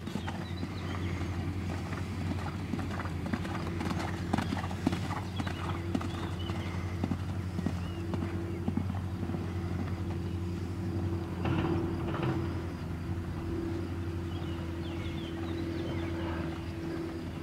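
Hoofbeats of a horse cantering on arena sand, a run of dull repeated thuds, over a steady low hum.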